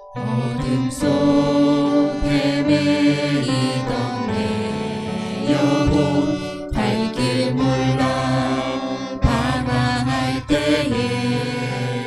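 A small worship team singing a Korean praise song into microphones, a man's and a woman's voices together, accompanied by violin and keyboard. The singing comes in right at the start, after a keyboard introduction.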